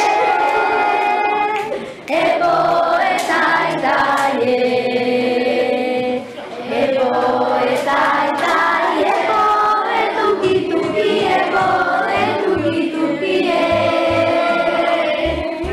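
A class of children singing together in unison, a chanted song in short phrases of about two seconds with brief breaks between them.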